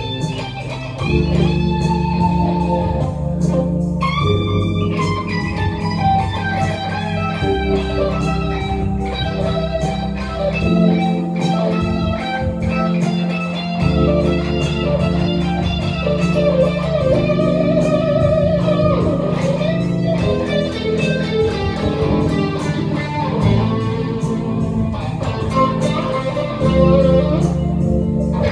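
Solid-body T-style electric guitar playing bluesy lead lines with vibrato and bends, over a steady accompaniment of low bass notes that change every second or two.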